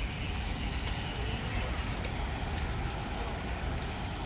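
Steady outdoor background noise in a city park: a low rumble with an even hiss above it.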